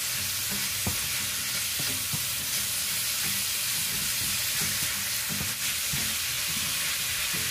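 Diced pork and sliced onion sizzling steadily in hot oil in a nonstick wok as they brown, stirred with a silicone spatula that gives scattered light scrapes and taps against the pan.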